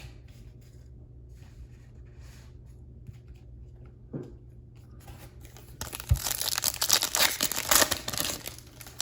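A 2020 Bowman baseball card pack's wrapper being torn open, with a loud crinkling rip starting about six seconds in and lasting a couple of seconds, after some quiet handling of the cards.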